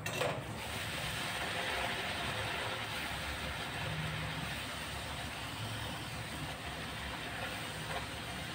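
A puri deep-frying in hot oil in a kadhai: a steady sizzle of bubbling oil as it is pressed down with a perforated slotted spoon. One short sharp knock comes just after the start.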